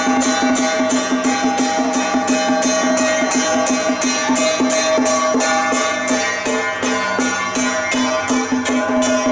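Temple procession music: a fast, even clash of cymbals, about four strokes a second, over held steady tones.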